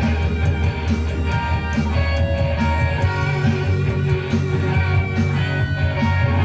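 Hard rock song playing between sung lines: guitars and bass over a steady beat.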